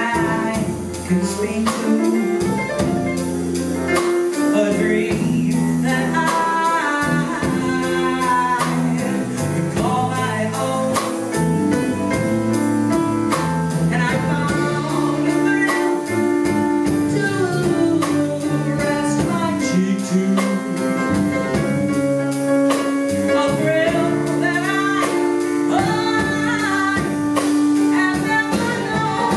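Live band music: a woman singing over a drum kit and electric bass guitar, with a steady beat.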